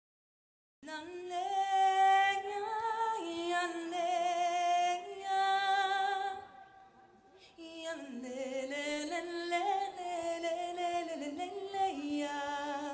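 A woman singing a slow melody with vibrato into a microphone, with a second pitched line moving in harmony below it and little audible accompaniment. The singing starts about a second in and breaks off briefly around the middle.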